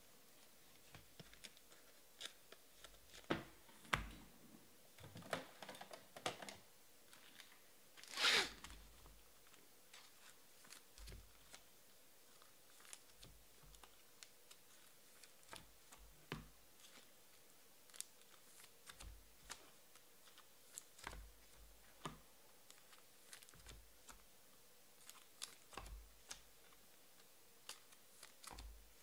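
Faint, scattered clicks of computer keyboard typing and mouse clicks, with one louder, longer rustle about eight seconds in.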